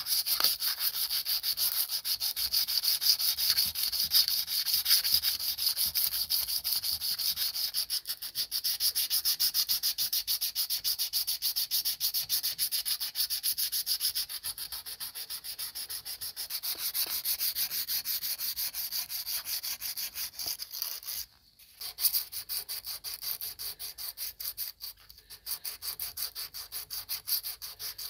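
Sandpaper rubbed by hand along the rusty steel wire of an old mouse trap, scraping in quick, even back-and-forth strokes to take off the rust. There is a brief pause about three-quarters of the way through.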